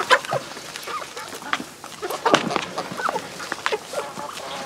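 A flock of chickens clucking as they feed, with short calls among many quick taps and rustles of beaks pecking sprouted rice grain in a plastic basin.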